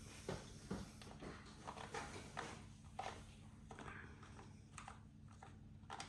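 Faint rustling and light scattered clicks of a pet grooming brush being worked through a cat's fur, over a low steady hum.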